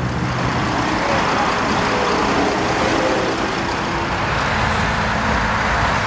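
Street-watering truck running steadily while water sprays from its hose, an even hiss over the engine.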